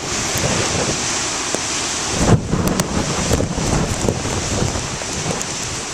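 Heavy storm surf breaking and rumbling against a rocky shore, with a wave crashing a little over two seconds in.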